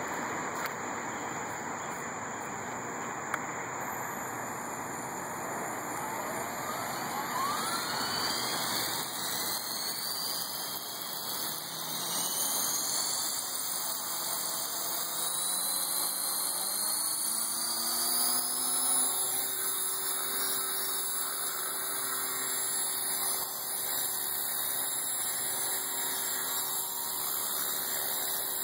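Align T-Rex 450 Sport electric RC helicopter spooling up. The electric motor and spinning rotor give a whine that rises in pitch for several seconds, then settles into a steady whine as the helicopter lifts into a low hover.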